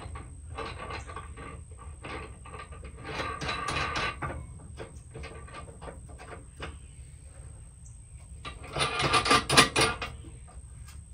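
Metal clinks and scrapes of steel nuts being hand-threaded onto bolts and steel hitch parts being handled, in short scattered clusters. A louder burst of metallic rattling comes near the end.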